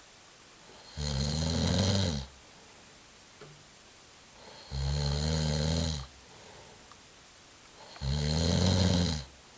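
Someone snoring loudly: three long, rasping snores about three and a half seconds apart, with quiet breathing between them.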